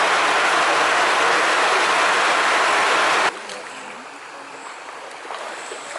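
Loud, steady rush of falling water that cuts off suddenly a little past three seconds in, leaving a much quieter background with faint ticks and small splashes.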